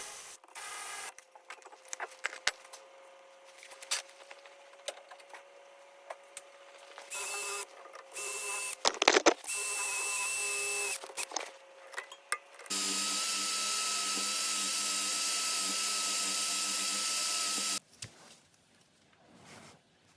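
A small power tool, such as a cordless drill or electric ratchet, runs in two short bursts and then in one steady run of about five seconds that stops abruptly. Hand tools click and clink between the runs.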